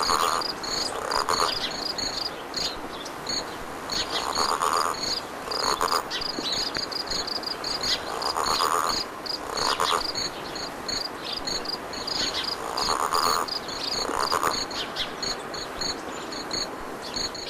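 Crickets chirping in a steady rapid pulse, with frog calls coming in pairs about every four seconds.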